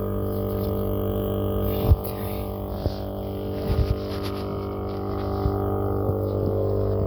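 A steady, unchanging motor drone, with a few sharp metallic knocks about two seconds in, near the middle and a little later.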